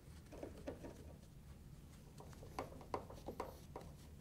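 Faint clicks and light scraping of a Phillips screwdriver turning screws out of the plastic dispenser and console panel of a Frigidaire front-loading washer, with the rustle of a gloved hand. The clicks are scattered, a little more frequent in the second half.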